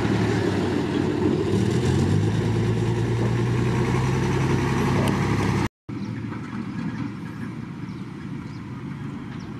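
Dump truck engine running as the truck drives along a dirt road, its pitch stepping up about two seconds in as it pulls harder. A little past halfway the sound cuts out for a moment and comes back quieter, with the truck farther off.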